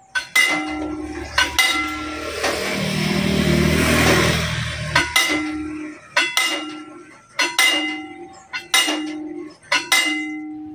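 Railway level-crossing warning bell striking about once a second with a metallic ring. A motor vehicle passes through the middle.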